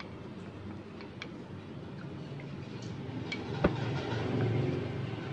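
Wooden spoon knocking and scraping soaked sago pearls off a ceramic bowl into a pot of boiling water, with a few light ticks and one sharp knock about three and a half seconds in, over a low steady rumble.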